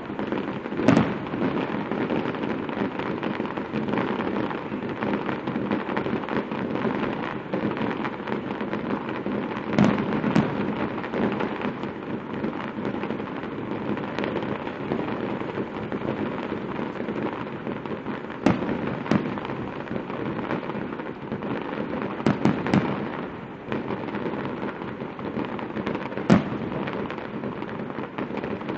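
Fireworks display: aerial shells go off in sharp bangs at irregular intervals, several seconds apart, with a quick run of three about three quarters of the way through, over a steady noisy background.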